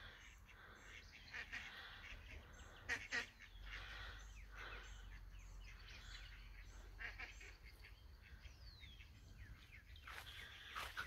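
Mallards calling in flight as they circle overhead: a series of faint quacks and raspy calls, loudest about three seconds in and again near the end.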